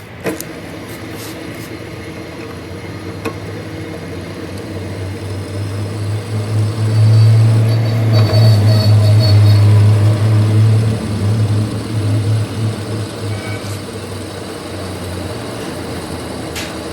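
A workshop machine running with a steady low hum, which swells louder from about six seconds in and eases back after about eleven seconds.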